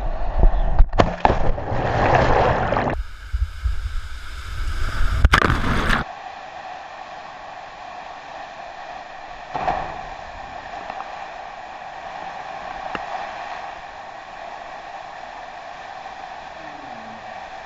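Waterfall pouring into a plunge pool in a narrow rock gorge, a steady rushing of water. For about the first six seconds it is buried under loud rumbling wind and knocks on the microphone, which stop abruptly, leaving the water rush alone.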